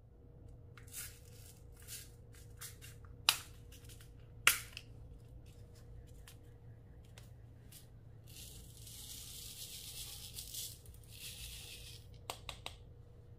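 Close-up handling sounds from slime making: scattered light taps and clicks, two sharp clicks about three and four and a half seconds in, then about three seconds of steady hissing, and a quick run of clicks near the end.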